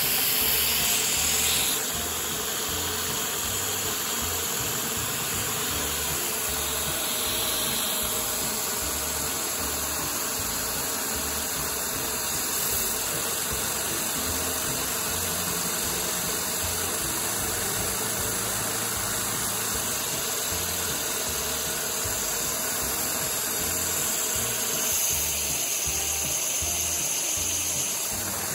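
Steady rushing hiss of a vacuum cleaner's suction running a Lego square-four vacuum engine, with the engine running underneath and no change in speed.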